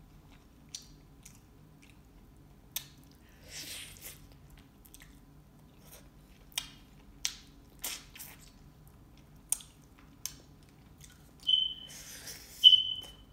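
Close-up mouth sounds of eating chicken wings: chewing with scattered sharp wet clicks and lip smacks. Near the end come two loud sucking slurps, each with a brief squeak, as meat is stripped off the wing bone with the teeth.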